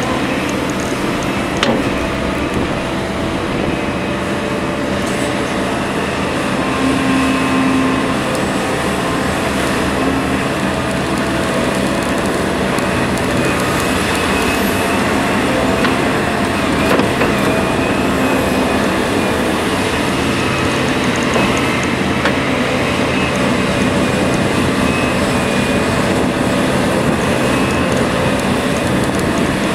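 Liebherr R 974 B crawler excavator's diesel engine running steadily while it works, with a sharp knock about two seconds in.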